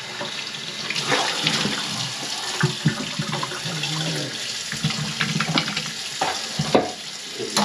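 Water running from a faucet into a kitchen sink, steady, with a few short knocks.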